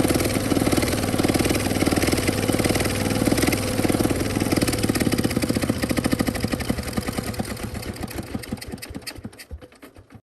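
Small four-wheel tractor's single-cylinder diesel engine running, its exhaust passing through a homemade plastic-jug muffler. Near the end the engine is shut off: the firing beats slow, spread apart and fade to a stop.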